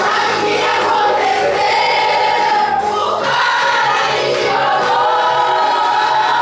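A church choir, mostly women, singing a gospel hymn together, steady and loud.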